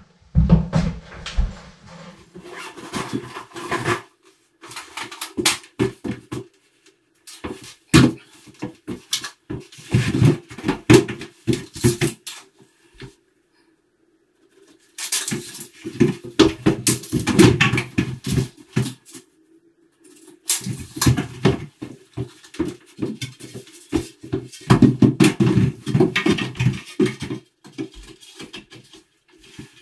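Bursts of knocking and clattering as a wooden ledger board is handled and held up against the wall from a stepladder, with short quiet gaps between the bursts.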